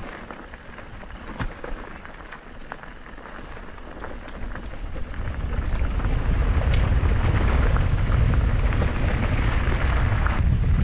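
Wind rushing over the microphone while a mountain bike rides a dirt trail, with scattered knocks and rattles from the tyres and bike. The wind noise grows louder about five seconds in.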